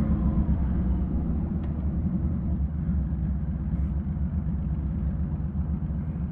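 Honda Valkyrie's flat-six engine running through Cobra six-into-six exhaust pipes while riding, a steady low rumble with some wind hiss, picked up by a microphone in the helmet's air vent.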